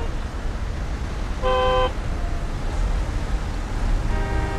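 Street traffic with a steady low rumble of car engines and car horns honking: a short blast about a second and a half in and another starting near the end.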